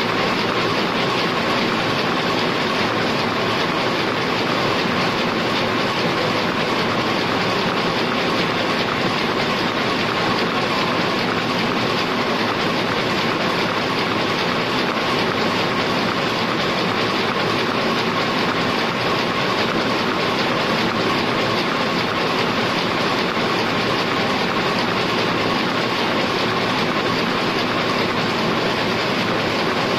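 Heidelberg SORMZ two-colour sheetfed offset printing press running, a loud, even mechanical din with a constant whine through it.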